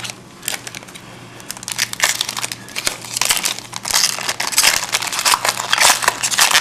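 Crinkling of a trading-card pack wrapper as hockey cards are handled and flipped through, irregular and busiest in the second half.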